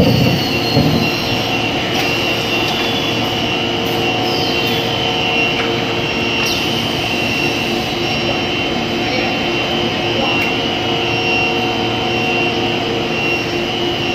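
Cast PE stretch film production line running at speed: a steady machine hum and whine with held tones. A few short falling whistles and faint clicks sound over it.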